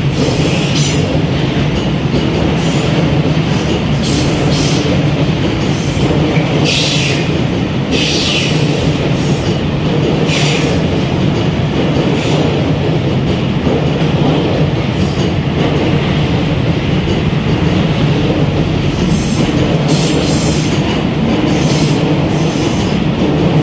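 Freight train running through a station without stopping: a steady loud rumble of steel wheels on rail, with short high-pitched wheel squeals every second or few.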